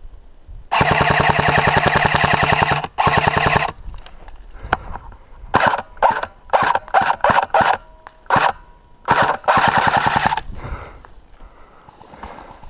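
Airsoft guns firing on full auto: a long burst of about three seconds, then a string of short bursts, then one more burst of about a second.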